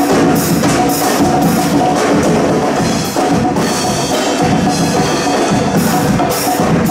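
Live percussion-band music: drum kit, congas and other hand drums playing a steady beat together.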